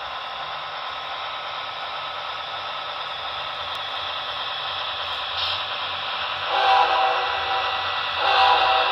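Sound-equipped model diesel locomotive playing its recorded engine rumble as a steady hiss-like drone, then two horn blasts near the end, the second louder.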